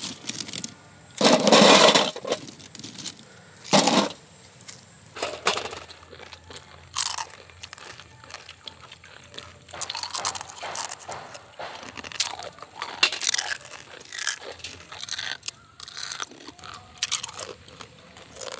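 Crisp fried rose cookies (achu murukku) being bitten and chewed: irregular crunches and snaps, with a louder stretch of crackling about a second in.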